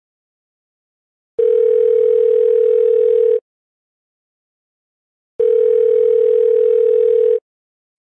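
Telephone ringback tone, the ringing a caller hears on the line. Two steady tones of about two seconds each, with about two seconds of silence between them.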